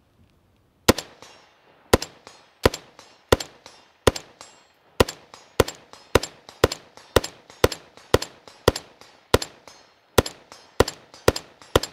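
Unsuppressed AR-15-pattern rifle in 7.62x39 fitted with a two-port muzzle brake, fired semi-automatically: about eighteen sharp shots at a steady pace of roughly one every half to one second, each with a short echo.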